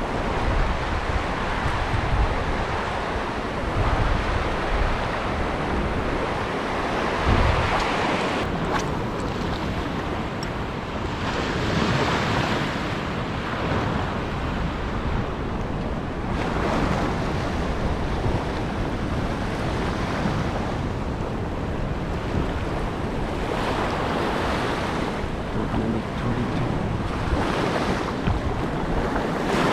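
Sea waves breaking and washing over a shallow coral reef, swelling and easing every few seconds, with wind buffeting the microphone. The water is rough after rain.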